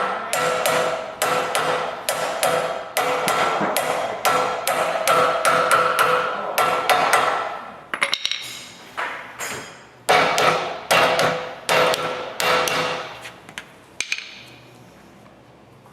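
Rapid hammer blows on metal, about three or four a second, driving a bearing bushing into place in a Spedo Plutone's swinging arm; the steel part rings after each blow. After a short pause there is a second run of blows, which stops a little before the end.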